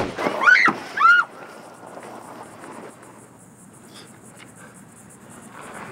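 A pistol firing a blank right at the start, followed by a person's sharp rising-and-falling cries for about a second, then only low background.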